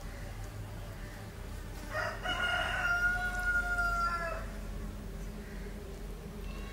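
A rooster crows once, starting about two seconds in and holding for a little over two seconds.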